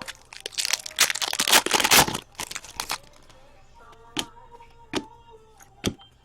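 Hockey card pack wrapper being torn open and crinkled for about three seconds, followed by three sharp clicks.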